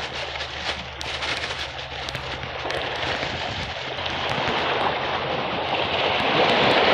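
Wind blowing across the microphone, a rushing noise that swells toward the end, with scattered ticks and a steady low hum underneath.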